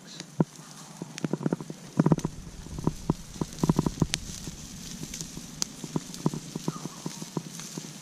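Wood campfire crackling, with irregular sharp pops and clicks, some in quick clusters, and a few low thumps among them.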